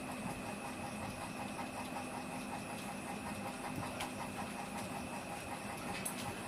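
Two Spitz dogs growling as they wrestle, a low steady rumble with a couple of sharp clicks.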